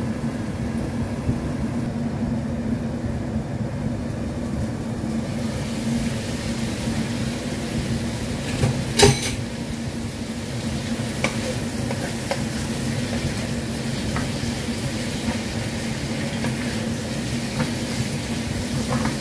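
Cucumber and carrot sizzling in a nonstick frying pan over a gas burner, over a steady low hum. About nine seconds in comes one sharp clank as the glass lid comes off, and later the light scrape and tap of a wooden spatula stirring the vegetables.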